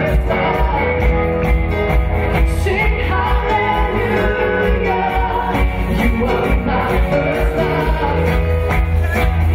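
A live worship band playing a song: several voices singing together over guitars and keyboard, with a sustained bass and a steady beat.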